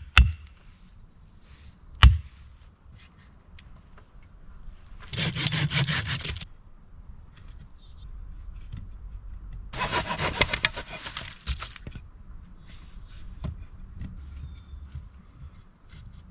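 A couple of sharp chops into wood, then two short spells of hand-sawing wood, each a rapid rasp lasting a second or two, the second one longer.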